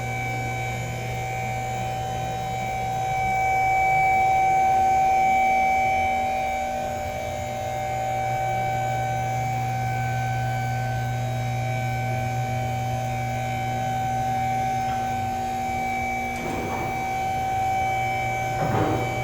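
Steady machine hum made of several fixed tones, swelling slightly a few seconds in, with two brief scraping or knocking noises near the end.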